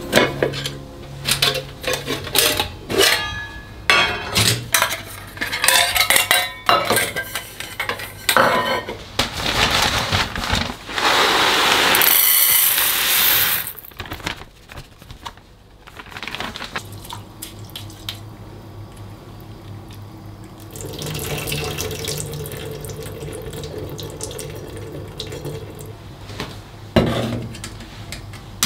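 Kitchen work: metal pots, bowls and utensils clattering and clinking, then dry rice poured into a small metal pot with a hissing rattle. Later comes a stretch of running water and another clatter of metal dishes near the end.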